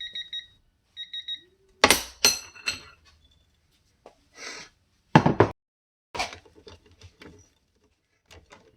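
Two short electronic beeps, then loud sudden cracks and clunks with the sharpest bang about five seconds in: a China-made Craftsman 1/4-inch ratchet pulled with a cheater bar on a torque tester until its internals strip apart.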